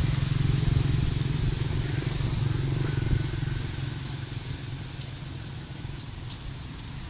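A motor vehicle's engine running steadily, loudest for the first three seconds or so and then fading away as it moves off.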